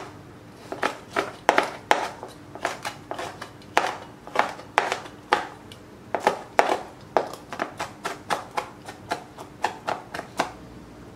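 Kitchen knife chopping vegetables on a plastic cutting board: a string of sharp, uneven knocks, about three a second, that stops shortly before the end.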